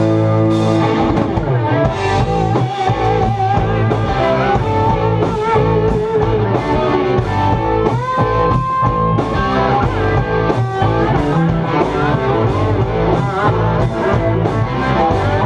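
Live blues-rock band playing: electric guitar lead with bent, wavering notes over electric bass and a drum kit. A held chord opens it. About halfway through, a note is bent up and held for a second or so.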